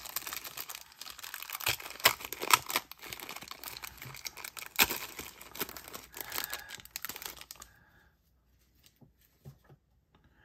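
Wrapper of a 1991 Pro Set football card pack being torn open and crinkled, crackling sharply for about eight seconds before it stops, followed by a few faint ticks.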